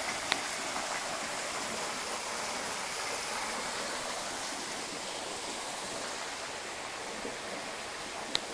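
Steady rushing of a mountain river, an even hiss of flowing water. Two brief clicks cut through it, one just after the start and one near the end.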